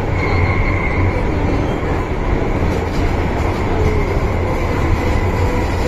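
MTR Island Line M-Train heard from inside the carriage while running: a steady rumble of wheels and running gear, with a faint high whine that is strongest about the first second.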